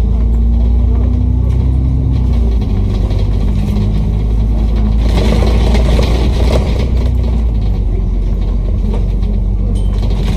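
Double-decker bus running along a city road, heard from the upper deck: a loud, steady low drone of engine and drivetrain with a faint held whine, and a louder rush of road and rattling noise about five seconds in that eases off after a couple of seconds.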